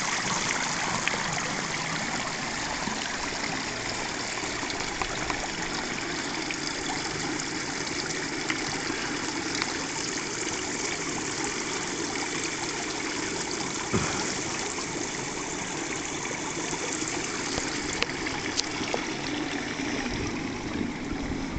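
Steady trickling, rushing sound of running water, with a faint click about fourteen seconds in.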